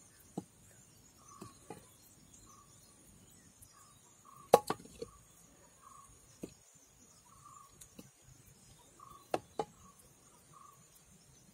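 Wooden churning stick turned slowly in a clay pot of buttermilk to gather butter that has already formed: scattered soft knocks and taps of the stick against the pot, the loudest a little before halfway. Faint short chirps repeat in the background.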